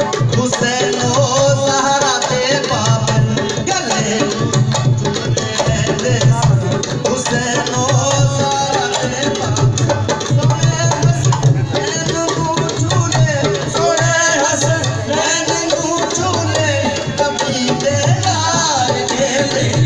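Loud qawwali music played over loudspeakers, a driving tabla beat under the melody.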